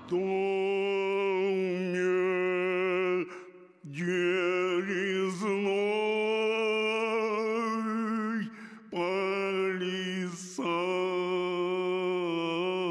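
A man singing long held notes unaccompanied, four of them with short breaks for breath, the pitch wavering on each.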